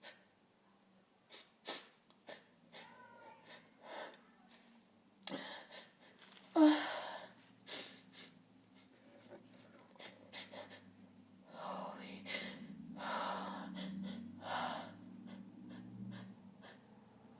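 A woman's sharp breathy gasps and sniffs as a sneeze builds up from chhinkni sneezing powder without fully coming. There is one loud burst about six and a half seconds in, and a run of gasps a little after the middle.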